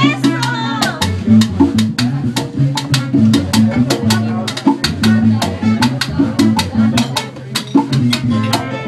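Live band playing an upbeat groove: an upright bass line moving under busy drums and percussion.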